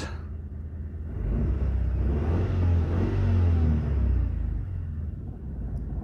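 Ford Mondeo Mk3 petrol engine idling just above 1,000 rpm, a steady low hum that swells louder for a few seconds in the middle. The engine has been misfiring on cylinders 1 and 4, whose spark plugs keep fouling with carbon.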